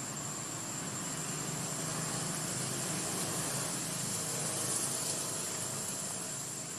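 Steady outdoor background noise: a low hum under an even hiss, with a constant thin high-pitched whine.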